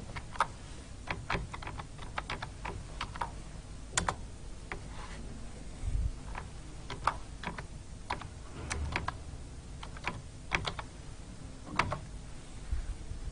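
Computer keyboard being typed on: single keystroke clicks at an uneven pace, a few a second, with short pauses between bursts.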